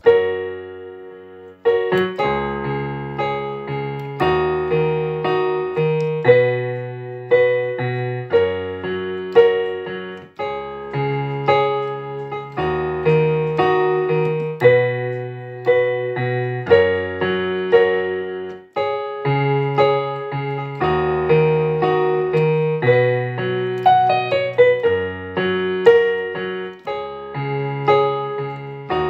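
Background piano music: a steady run of struck notes in a repeating chord pattern, starting suddenly.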